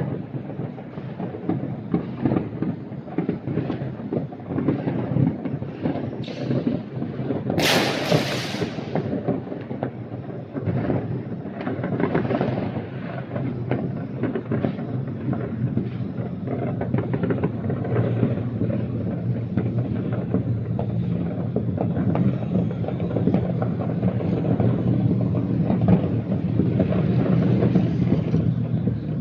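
Fireworks and firecrackers going off across a city, a dense, steady run of bangs and crackles, with one loud hiss about eight seconds in.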